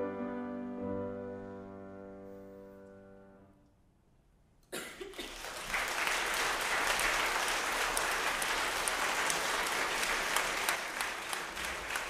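Saxophone and grand piano end on a held final chord that fades away over the first three to four seconds. After a second of quiet, audience applause breaks out suddenly and carries on, the loudest sound.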